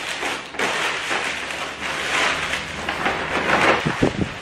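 Plastic bag rustling and crinkling as it is handled and opened, with a couple of soft thumps about four seconds in.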